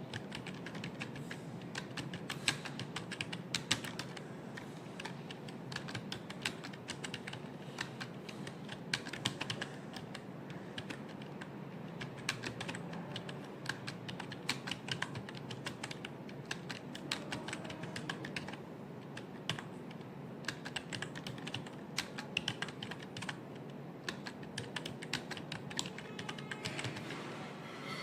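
Continuous fast typing on a computer keyboard, keys clicking irregularly several times a second, over a steady low background hum.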